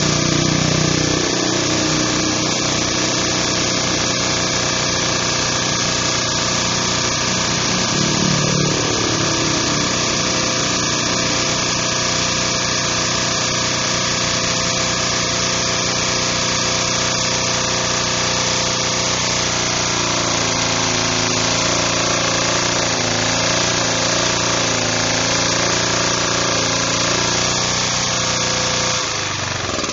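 Firman FPG1500L four-stroke gasoline generator engine running steadily. Its pitch shifts briefly about a second in and again about eight seconds in.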